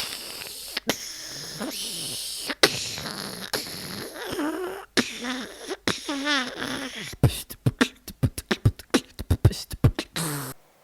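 A man making sound effects with his mouth and voice. First a long hiss broken by a few sharp clicks, then a wavering, warbling pitched sound about six seconds in, then a fast run of sharp mouth clicks and pops.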